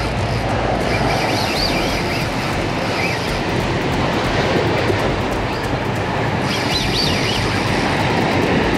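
Surf washing and breaking over seaweed-covered shore rocks, a steady rushing. Short bursts of high seabird calls over the blitz about a second in and again near the end.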